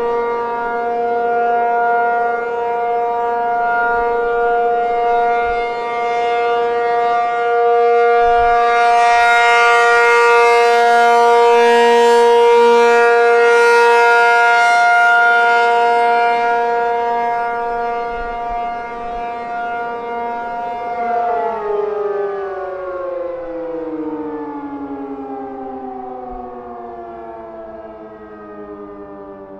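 ACA P-50 electromechanical outdoor warning siren sounding its steady Alert tone, swelling louder in the middle. About two-thirds of the way through the tone ends and the pitch glides slowly down as the siren winds down.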